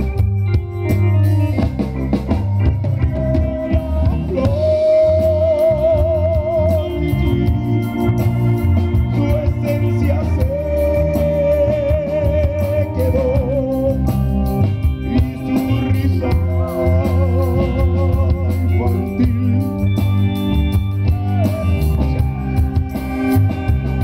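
Live band playing an instrumental passage: electric bass and a drum kit keep a steady beat with congas, under a wavering organ-like keyboard melody of long held notes.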